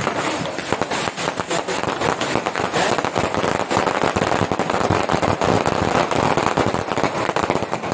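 A long string of firecrackers going off in rapid, crackling succession, many sharp cracks a second without a break.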